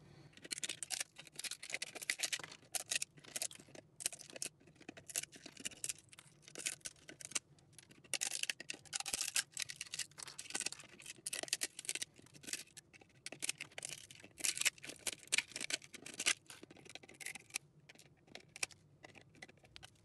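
Pliers pulling and snapping 3D-printed PETG support material off a print: an irregular run of plastic crackles, snaps and scrapes with short pauses between.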